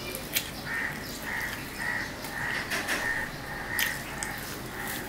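Eating by hand, with fingers mixing rice and curry on a steel plate and a few sharp mouth clicks. A bird calls over it, short calls about twice a second starting about a second in.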